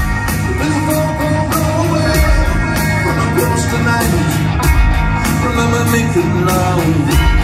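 Live rock band playing, heard from within the crowd: a male lead singer over electric guitars and drums.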